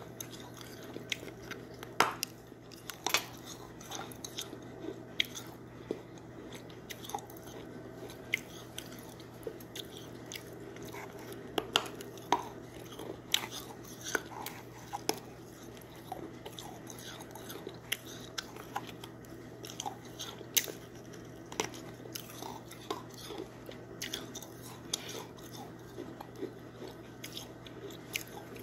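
Close-up mouth sounds of a person biting into and crunching a hard, brittle piece held to the lips, with irregular sharp crackles about a second apart and chewing in between.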